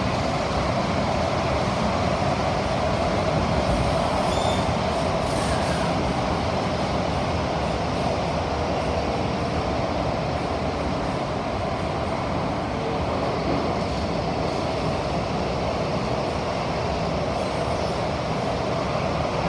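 Cabin running noise of an SMRT CT251 electric metro train travelling through a tunnel: a steady rumble of wheels on rail with a constant rushing noise.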